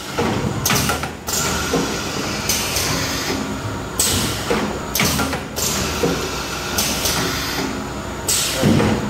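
Milk pouch-packing machine running through its cycles, filling and sealing plastic pouches, with a steady mechanical hum and a burst of hiss about every one and a half seconds.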